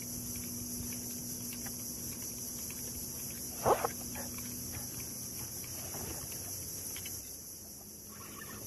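Steady, high-pitched insect chorus, with a brief louder sound a little under halfway in.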